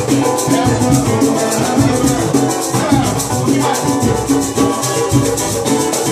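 Live pagode samba group playing: a cavaquinho strumming over a fast, steady shaker rhythm and low hand-drum beats.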